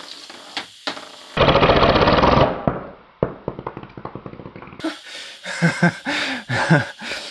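3D-printed compressed-air engine on 60 psi, with a light two-screw flywheel, running up to a loud, very rapid hammering for about a second, then cutting off abruptly and rattling down as it breaks apart: the printed crankshaft snaps and the flywheel comes apart. Scattered ticks and knocks follow.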